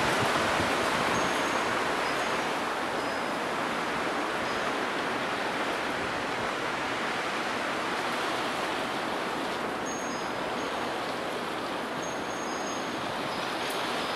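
Steady rushing noise of a storm, heavy rain and strong wind together, with no separate knocks or impacts.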